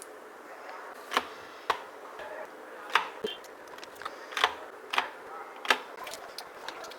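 Light, sharp clicks and taps as a HIMI gouache paint set and its packaging are handled during unboxing: about seven separate clicks, irregularly spaced, over a faint steady background hiss.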